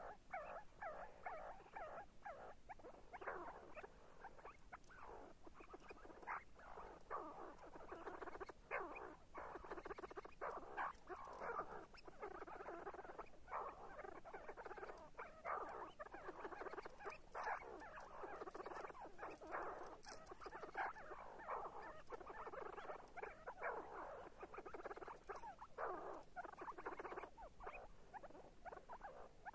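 See-see partridge calling: a long run of short, squeaky notes in quick succession.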